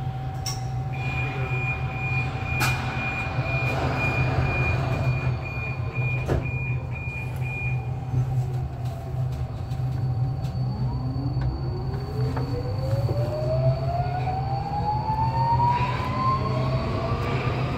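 Budapest Metro M4 train (Alstom Metropolis) standing at the platform over a steady hum, with rapid electronic warning beeps for about seven seconds, typical of doors about to close. From about ten seconds in it pulls away, its electric traction motors making a whine that rises steadily in pitch as it accelerates.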